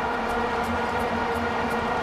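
Stadium crowd noise under a steady, unbroken drone of many vuvuzelas, with a regular beat about three times a second.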